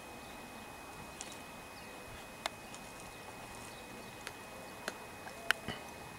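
Collared peccary rooting in dry, stony soil: a handful of sharp, scattered clicks and knocks of stones and grit over a steady faint hiss, the loudest near the end.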